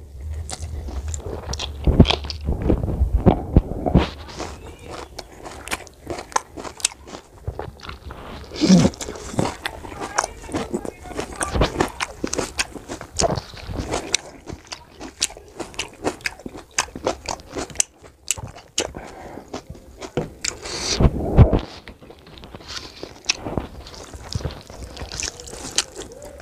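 Close-miked eating of mutton curry with rice by hand: wet chewing, biting and lip smacks, mixed with fingers squishing rice and gravy on a steel plate. The sounds come in an irregular stream of clicks, with a few louder mouthfuls about two, nine and twenty-one seconds in.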